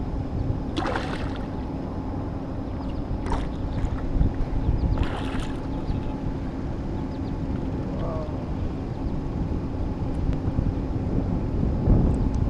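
Small boat's outboard motor running steadily at low speed, with wind rumbling on the microphone. Three brief sharp bursts of noise about one, three and five seconds in.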